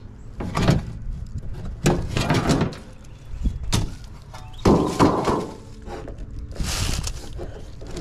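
Sheet-metal access panel of a Ruud packaged gas furnace being pulled off the cabinet: a series of hollow metal knocks and thunks, with a short scraping hiss near the end.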